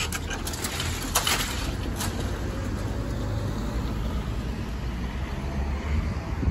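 A car driving across the level crossing with the barriers raised and the road reopened, with a few sharp knocks about one and two seconds in and a low rumble of wind on the microphone.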